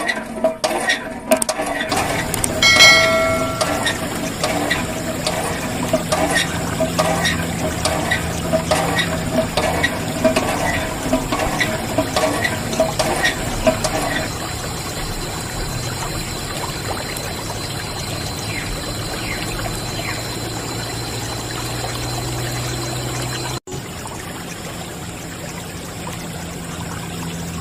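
Water from a toy hand pump's tube splashing onto a small wet platform, in regular spurts about twice a second, then settling into a steady trickle about halfway through.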